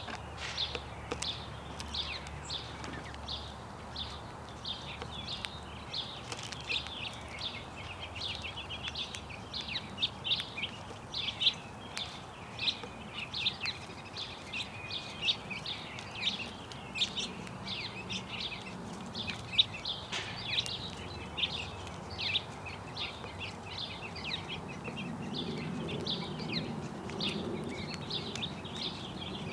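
House sparrows chirping constantly, many short chirps overlapping in a busy chatter. A low rumble comes in near the end.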